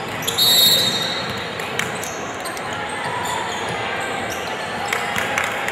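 A referee's whistle blows once, briefly, about half a second in: the loudest sound here. Basketballs bounce and knock on the gym floor afterwards, over the steady hum of a large hall.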